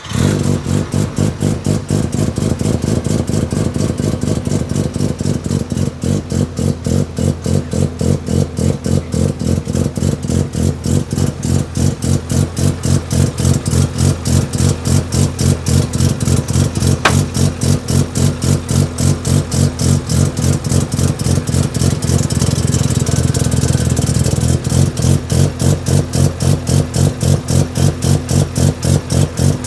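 Turbocharged 13B twin-rotor rotary engine of a Mazda RX-7 FD3S running at a steady, lumpy idle, pulsing evenly several times a second. The sound cuts in suddenly at the start, and a single sharp click comes partway through.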